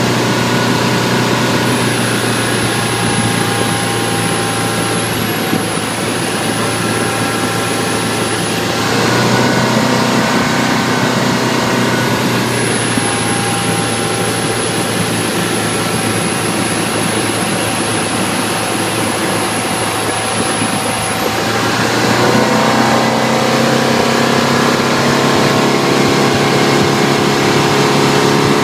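2012 Bayliner 175BR's engine running, its pitch shifting a few times, with a thin, very high-pitched squeal over it that comes in twice, for about six and then about eight seconds. The squeal is heard with the engine hatch closed.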